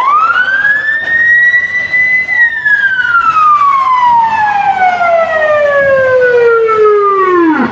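Loud arena siren winding up to a high wail within about a second, holding for about two seconds, then sliding slowly down in pitch for about five seconds before cutting off abruptly: the signal for the end of a period.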